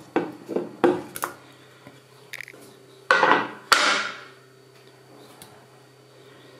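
A wooden cutting board knocking several times against the rim of a stainless steel pot as sausage slices are scraped off it into the sauce. About three seconds in come two louder, longer scrapes as the board is put down on the wooden counter.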